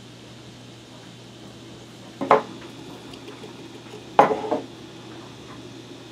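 Glass quart canning jars clinking as they are moved about on the table: two sharp knocks with a brief ring, about two and four seconds in, and another right at the end.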